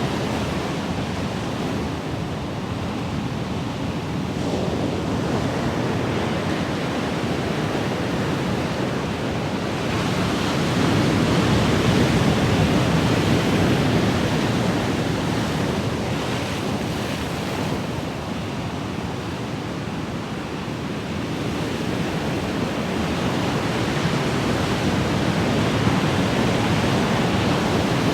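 Ocean waves washing on shore in a continuous rushing hiss that swells and ebbs slowly, a louder surge about ten seconds in and again near the end.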